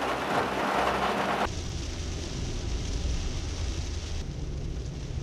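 Steady hiss of heavy rain that cuts off abruptly about a second and a half in. It gives way to the low rumble of a car driving on a wet road, heard from inside the cabin.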